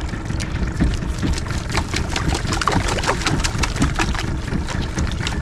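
Wind on the microphone and water against a small boat, a steady low rumble with many irregular knocks and splashes.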